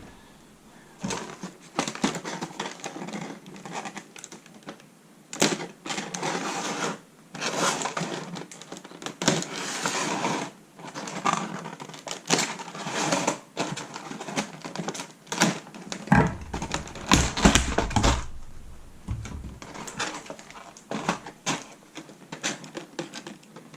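Plastic and cardboard packaging being handled while an action figure is unboxed: irregular clicks, rustles and scrapes, with a few deep bumps about two-thirds of the way through.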